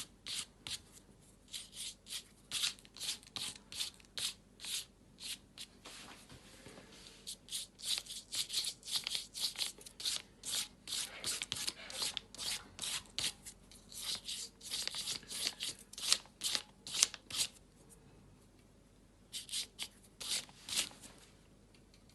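A fingertip rubbing acrylic paint into paper to blend painted lines into a wood-grain effect. It makes quick, repeated scratchy rubbing strokes, about one or two a second, with a short pause near the end.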